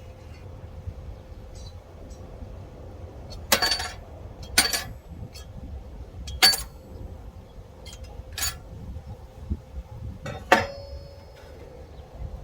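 Steel parts clinking and clanging against each other: five sharp, ringing metal hits spaced one to two seconds apart, over a low steady hum.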